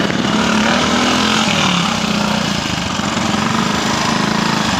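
Velocette trials motorcycle's engine running close by under load, a rapid firing pulse whose pitch dips and rises as the rider works the throttle through the section.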